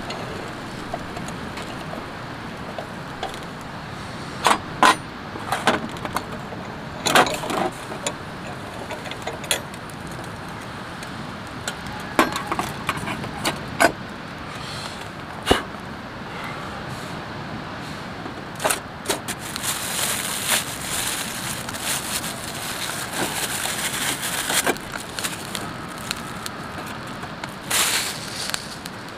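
Metal camp cookware being handled: a dozen or so sharp clinks and knocks of tongs, pots and handles against a metal table, over a steady background hiss. A louder hiss rises for a few seconds about two-thirds of the way through.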